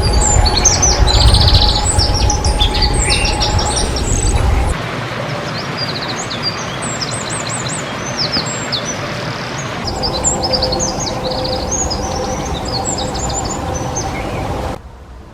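Eurasian wren singing: loud, fast runs of high notes and rattling trills, in several songs one after another. A low rumble sits under the first few seconds.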